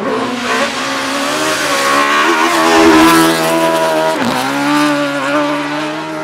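Hillclimb race car engine running hard at high revs, loudest around the middle. About four seconds in the pitch drops sharply and climbs again, as on a gear change.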